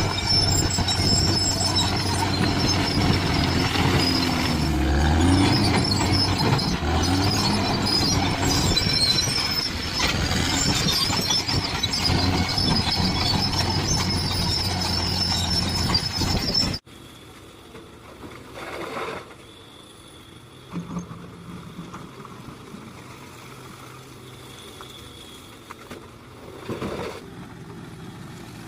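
Heavy diesel earthmoving machinery working, its engine changing pitch under load, with high metallic squealing. It cuts off suddenly about two-thirds of the way in, giving way to a much quieter, steady low engine hum with a few brief louder sounds.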